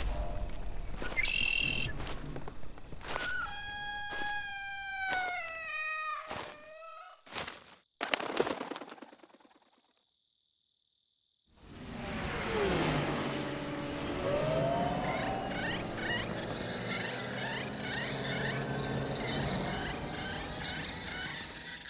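Synthesized sci-fi forest ambience of Endor's wildlife: knocks and clicks, and a creature call that falls in pitch in steps. After a near-silent gap halfway through, a dense chorus of bird- and insect-like chirps comes in with a low falling creature sound beneath.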